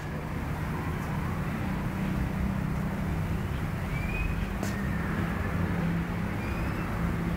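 Small engine of a homemade motorized trike idling steadily, a constant low hum and rumble.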